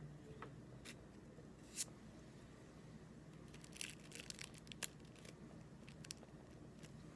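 Faint crinkling and rustling of paper being handled, with a sharp crackle a little under two seconds in and a cluster of crinkles about four to five seconds in, over a low steady hum.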